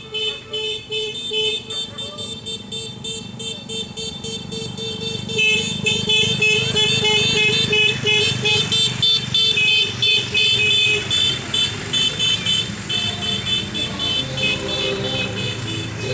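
Motorcycles and cars passing slowly in a convoy, engines running. Over them a vehicle's electronic horn or siren beeps in a fast repeating pattern, growing louder and brighter about five seconds in.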